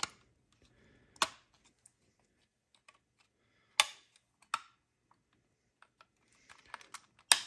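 Scattered sharp plastic clicks and taps, four clear ones with fainter ticks between and the loudest near the end, as the circuit board of a Land Cruiser 80-series climate control unit is pressed down and seated into its plastic housing.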